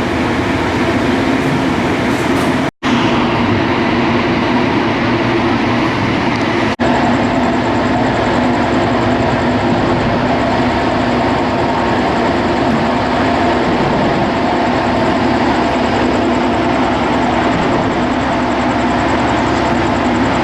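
A steady, loud rumbling noise with a low hum, like machinery or a train. It cuts out abruptly for an instant twice in the first seven seconds.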